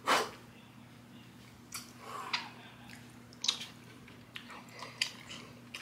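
Close-up chewing and mouth noises: scattered wet smacks and short crunchy clicks, the sharpest right at the start, over a steady low hum.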